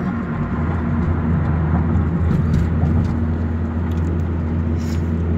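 Car engine and tyre noise heard from inside the cabin while driving, a steady low hum.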